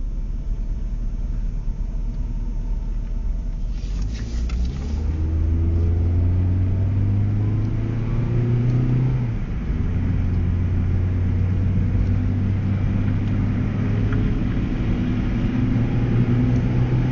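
2001 Dodge Neon's four-cylinder engine heard from inside the cabin, over steady road rumble: it revs up under acceleration, drops in pitch suddenly about nine and a half seconds in at a gear change, then pulls steadily and slowly climbs again.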